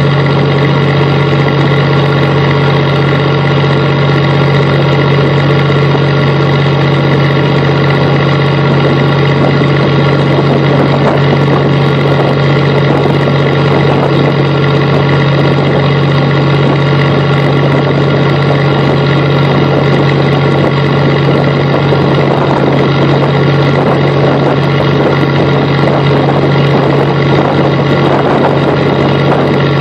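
A fishing boat's engine running steadily under way: a loud, even hum with a strong low note and many overtones above it.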